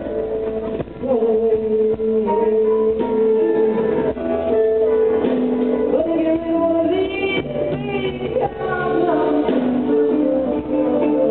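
Live blues band playing, a woman singing lead over electric guitars, drums and keyboard.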